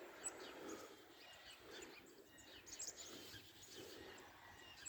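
Faint outdoor ambience with a few faint bird chirps scattered through it.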